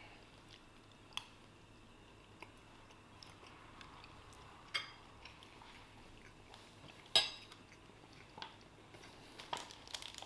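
Quiet chewing at a meal, with a few sharp clinks of cutlery against a plate; the loudest clink comes about seven seconds in.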